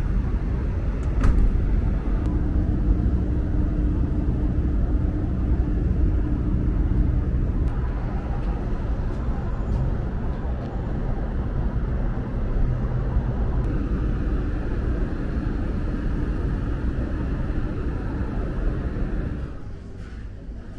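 Steady low rumble of outdoor city ambience, mostly distant road traffic with a faint steady hum over it. It drops away about a second before the end.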